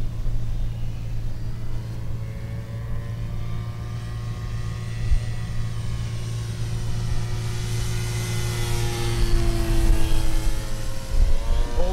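Electric motor and propeller of a foam RC Corsair model plane on a low pass: a whine that swells and rises slowly in pitch as it approaches, is loudest as it passes about ten seconds in, then drops in pitch as it goes away. A steady low hum runs underneath.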